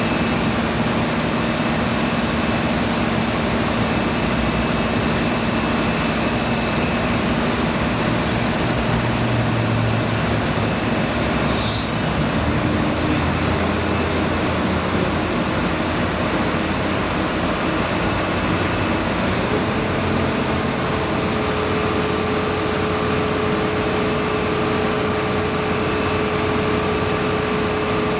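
Steady engine or heavy machinery noise with a droning hum that shifts up in pitch about two-thirds of the way through, and a brief high hiss near the middle.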